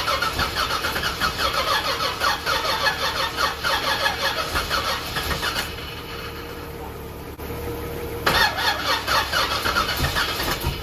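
Starter cranking a supercharged small-block Chevy V8 in a fast, even rhythm for about six seconds without it catching, then a pause and a second cranking attempt about two and a half seconds later.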